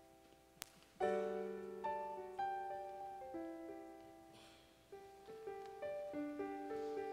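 Piano playing soft, slow chords, each note struck and left to ring and fade. A single sharp click comes just before the first chord.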